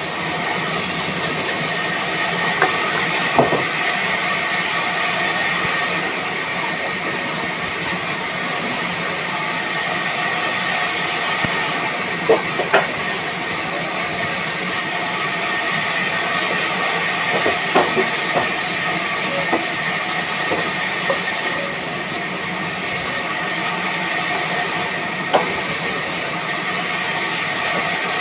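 Band sawmill running with a steady hiss, with scattered sharp knocks.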